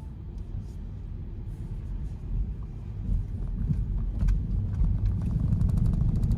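A low, steady rumble that grows gradually louder, with faint scattered clicks over it.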